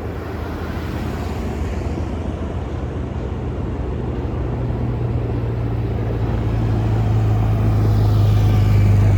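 Motor vehicle engine with a steady low hum, growing louder as it approaches and loudest near the end.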